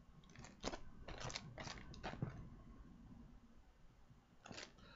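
Plastic DVD cases handled and turned close to the microphone: faint clicks and crackles in a cluster over the first two seconds, then another about four and a half seconds in.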